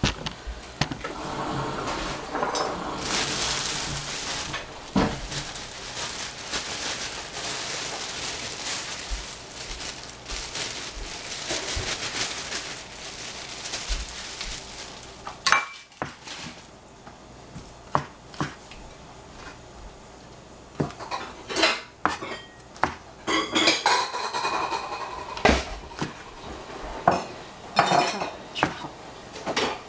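Kitchen clatter of pots, dishes and utensils clinking and knocking during cooking, with a steady hiss through roughly the first half.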